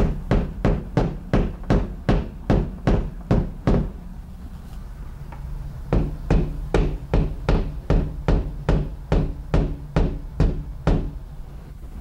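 Hammer tapping a wall anchor into drywall in quick, light, even strikes, about three a second. The taps stop for about two seconds in the middle, then start again in a second run.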